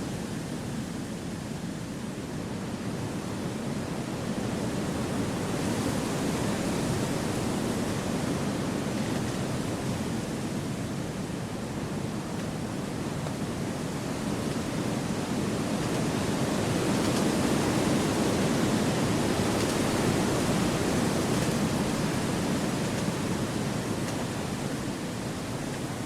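Wind rushing steadily through forest trees, with no distinct sounds in it, rising and easing in two slow gusts.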